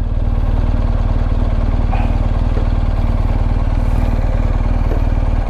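BMW R1250 GS Adventure's boxer-twin engine running at low, steady revs with an even, rapid firing pulse as the bike rolls slowly.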